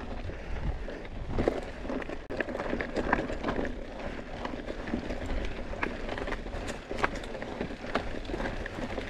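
Scott Spark RC full-suspension mountain bike ridden over dry dirt singletrack: tyres rolling on loose ground under a steady rumble, with irregular sharp clicks and knocks from the bike rattling over bumps.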